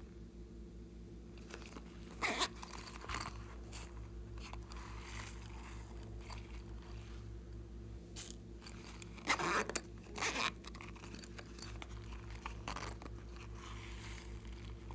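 Hands handling two avocado-shaped zippered pouches and tipping glitter and sprinkles out of one into a glass dish of glue. Irregular rustles and scrapes, the loudest about two seconds in and again from about nine to ten and a half seconds in.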